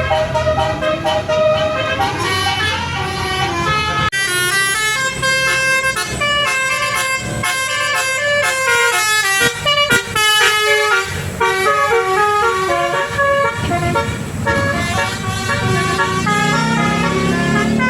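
Bus telolet basuri horn, a multi-tone musical air horn, playing a quick melody of short stepping notes over and over.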